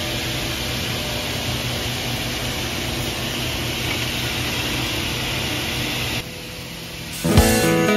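Steady hiss with a low hum from running woodworking machinery. The hiss drops away about six seconds in, and guitar music starts near the end.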